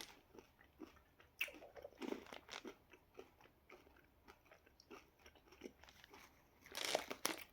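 A person chewing a piece of chocolate close to the microphone: irregular soft wet mouth clicks and chewing sounds, a little louder near the end.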